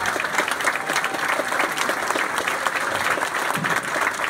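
Audience applauding: many hands clapping at once, steady and fairly loud throughout.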